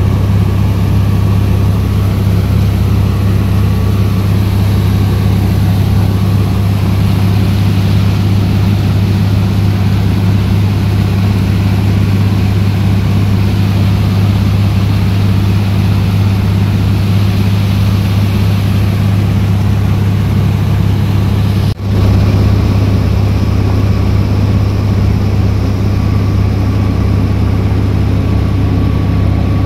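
Engine of a small fibreglass passenger boat running steadily at cruising speed, a loud even drone with a brief dropout about 22 seconds in.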